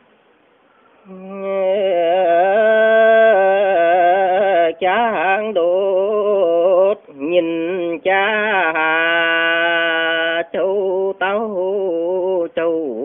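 A man singing a Dao Tuyển folk song solo, starting about a second in. He holds long notes that waver in pitch, with short breaks between phrases.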